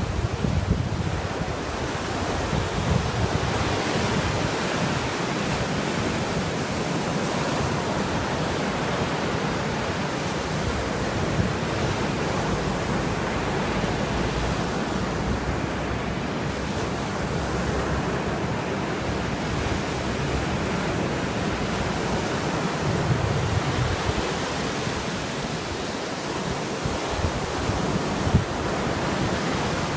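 Caspian Sea waves washing onto the shore in a steady, dense rush, with gusts of wind buffeting the microphone at times.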